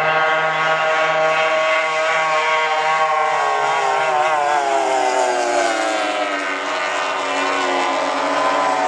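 Several Formula 3 racing tunnel boats' outboard engines running hard: a steady, high-pitched drone. Its pitch slides steadily down over the second half as the boats turn away.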